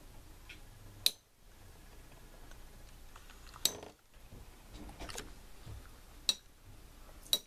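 Metal Beyblade spinning tops clacking together as they spin in a plastic stadium: five sharp, ringing metallic clicks at irregular intervals of one to two and a half seconds.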